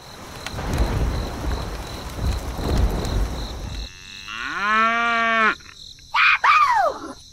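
A rumbling noise for about four seconds, then a single drawn-out animal call lasting about a second that holds its pitch and then drops, followed by two short calls that rise and fall in pitch.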